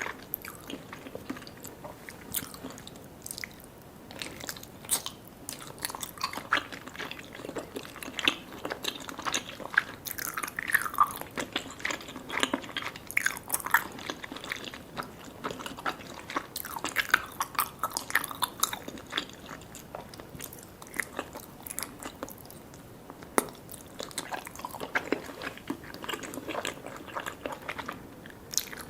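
A person chewing and biting sticky jelly desserts and cake: wet, smacking mouth sounds with frequent small clicks.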